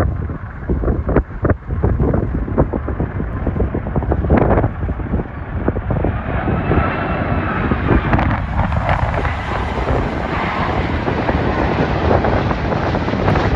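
Airbus A330-200's twin jet engines on final approach, a steady rumble that fills out with hiss and a faint whine curving in pitch as the jet comes close about halfway through. Wind buffets the microphone in the first few seconds.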